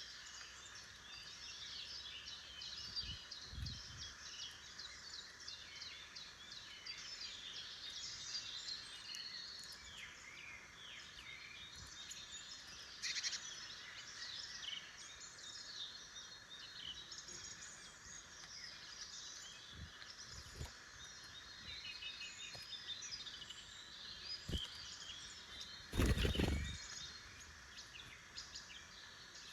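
Woodland birdsong: several wild birds singing and calling at once, their songs overlapping without a break. A few low thumps come through the birdsong, the loudest about 26 seconds in.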